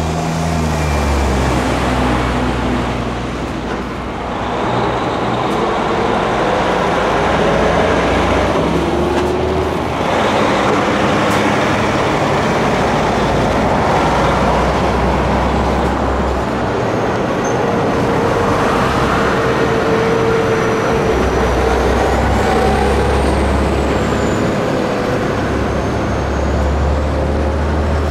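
Heavy tractor-trailers hauling E5 series Shinkansen cars driving past one after another, with other traffic: diesel engines running with a low throb that comes and goes, over steady tyre and road noise.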